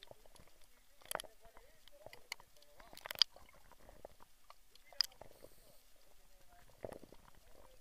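Sea water picked up by an underwater camera: irregular sharp clicks and crackles, the loudest about three seconds in and again about five seconds in, over a faint wavering low sound.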